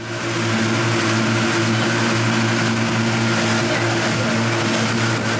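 Two 30 hp outboard motors running steadily at cruising speed, pushing a loaded inflatable trimaran, with a constant engine drone over the rush of churned water and wind.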